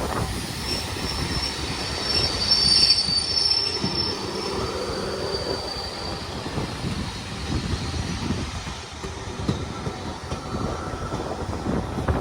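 Train hauled by an LMS Black Five steam locomotive rolling into a station: a high-pitched squeal of wheels through the first half, loudest about three seconds in, over the rumble and clatter of wheels on the rails.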